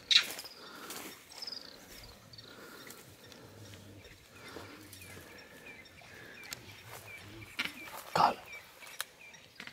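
African wild dogs killing a bushbuck: a sharp, loud cry at the start, then short high chirping twitters repeated a few times a second, and another loud burst near the end.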